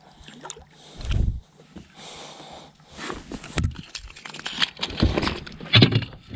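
Water splashing and sloshing as a hooked flathead catfish is fought up beside the boat, with irregular low thumps and sharp scrapes and clicks against the boat.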